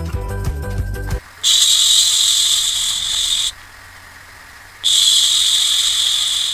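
Music stops about a second in, then come two long hissing sounds of about two seconds each, separated by a short pause.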